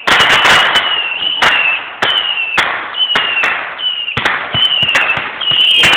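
Fireworks going off: a rapid run of sharp bangs and cracks, with short whistles that fall slightly in pitch, one after another.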